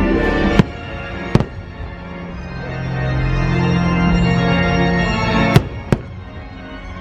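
Fireworks bursting, four sharp bangs, the last two close together near the end, over loud show music with sustained organ-like tones.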